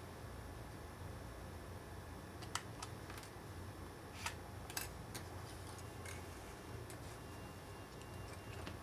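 A few faint, sharp little clicks from a SIM tray being pushed out of an iPhone 3GS with a piece of copper wire and handled, spaced irregularly through the middle, over a faint low hum.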